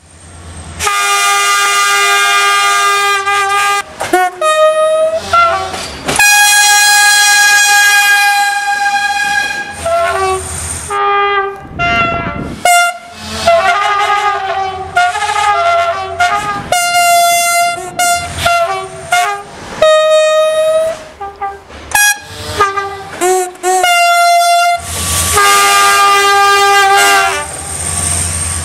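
A long series of loud train horn blasts in several different pitches, some held steady for a few seconds, others bending up or down in pitch. Near the end the horns give way to the rumbling noise of a passing train.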